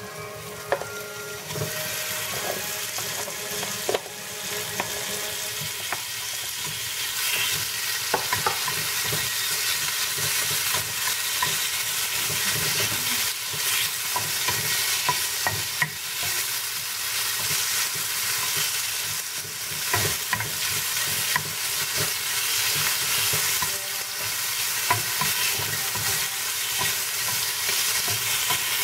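Raw chicken pieces sizzling in a little olive oil in a nonstick frying pan, stirred and turned with a wooden spatula, with scattered knocks of the spatula against the pan. The sizzle builds over the first couple of seconds as the chicken goes into the hot oil.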